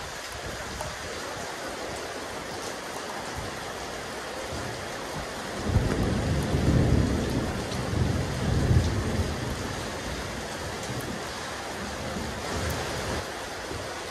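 Steady rain falling on a rooftop terrace, with a low rumble of thunder rising about six seconds in, swelling a few times and dying away about three seconds later.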